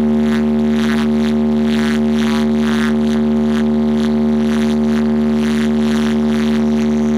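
A large DJ sound box with 10 bass and 12 mid speakers plays one loud, steady held note that stays at the same pitch throughout.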